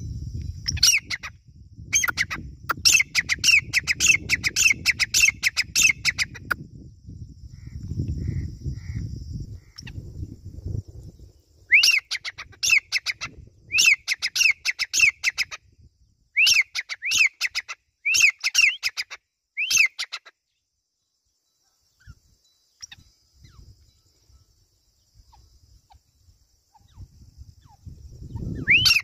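Grey francolin calling: loud, sharp, ringing notes repeated about two a second, in two long runs with a quieter gap between them. A low rumble lies under the first ten seconds.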